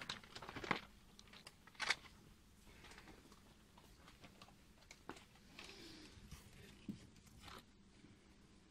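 Faint room tone with scattered light clicks and rustles, as of goods and packaging being handled; the sharpest click comes about two seconds in, with a few more later on.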